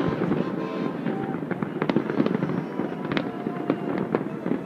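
Distant fireworks display: many overlapping bangs and crackles blending into a continuous rumble, with sharper single reports standing out every half second or so.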